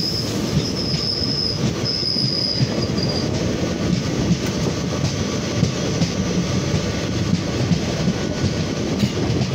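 Passenger train coaches running along the track, heard from an open door: a steady rumble of wheels on rail. For the first three seconds a high, broken wheel squeal sounds over it as the coaches round a curve.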